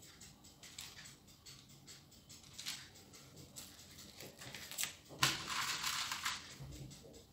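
Quiet clicks and scrapes of a spoon setting dollops of coconut cookie mixture onto a parchment-lined baking tray, then about five seconds in a louder rustle of the parchment paper lasting about a second.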